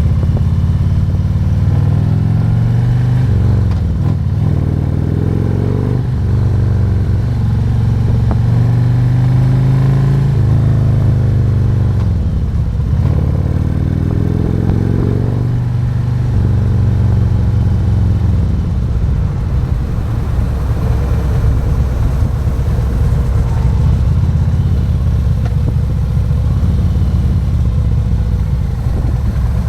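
Harley-Davidson Road King's 117 cubic-inch V-twin engine pulling up through the gears, its pitch rising and dropping back at each of several upshifts. In the second half it runs more steadily with road noise.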